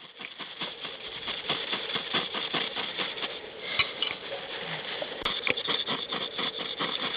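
Striker rasping again and again down a ferrocerium fire-steel rod over birch bark, about four to five quick scrapes a second, during first attempts to throw sparks onto the tinder.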